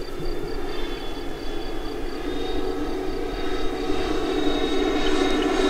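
Twin Schubeler 120 mm electric ducted fans of a large RC Airbus A350 model in flight: a steady whining rush with several fan tones, growing somewhat louder toward the end.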